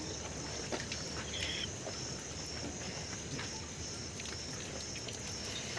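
A cricket chirping steadily, a high even pulse about twice a second, over a faint background murmur.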